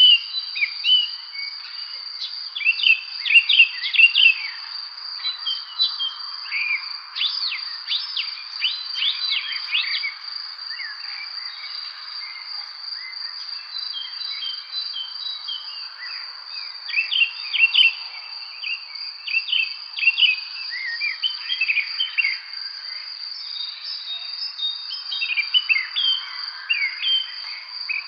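Spring evening bird chorus: many short chirps and whistled notes from several birds, thickest in bursts, over a continuous high, steady insect trill.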